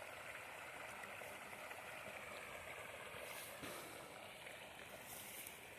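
Faint, steady rushing noise of outdoor ambience, like running water, with two brief high hisses about three and five seconds in.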